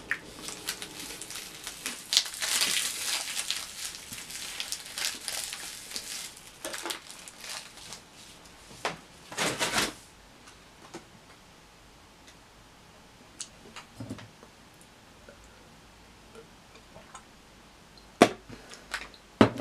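Crackling, rustling handling noise as a packaged hazelnut snowball sweet is handled and eaten, with a louder rustle about nine seconds in, then mostly quiet apart from a few soft clicks.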